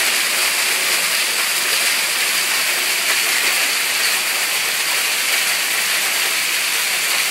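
Hail pouring in a steady stream off a roof edge where the gutter is clogged with hail, landing on a pile of hailstones: an even, unbroken hiss.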